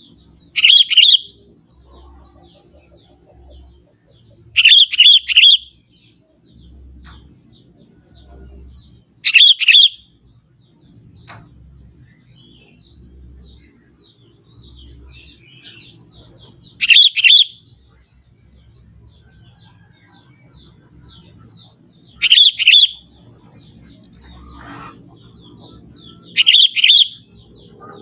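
A young sooty-headed bulbul calling: six loud short phrases of a few quick notes each, a few seconds apart, with fainter chirps of other birds between them.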